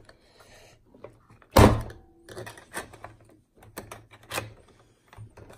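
Plastic compartment shutter on a toy Tonka fire truck being worked shut by hand: one loud plastic thunk about a second and a half in, then a run of small clicks and rattles.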